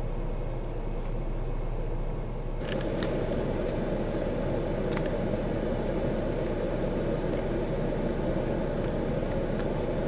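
Steady cabin noise of a parked car with its engine idling, heard from inside the car. About two and a half seconds in the noise steps up louder, with a few light clicks after that.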